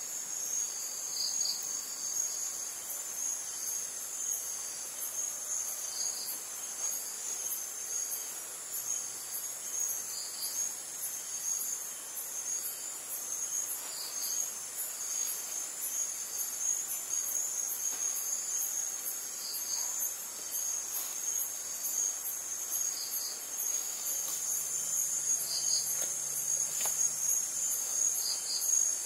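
Crickets and other insects trilling: a steady high-pitched trill, with a second insect giving short paired chirps every three to five seconds.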